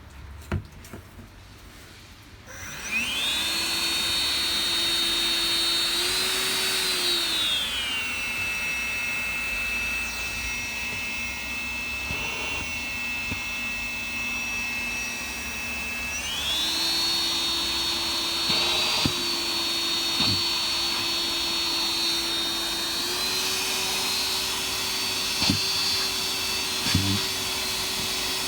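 Makita CL281FD cordless stick vacuum switched on about three seconds in, running with a steady high whine. It changes speed in steps: down to a lower pitch around eight seconds, back up around sixteen seconds and higher again near twenty-three seconds, with a few short clicks along the way.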